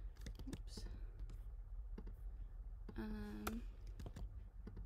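Scattered clicks of a computer mouse and keyboard during vector drawing work, with a short hummed vocal sound about three seconds in.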